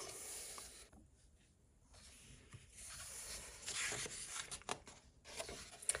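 A colouring book page being turned by hand: soft paper rustling and brushing, with a few light ticks, in the second half, as the page is laid over and smoothed flat.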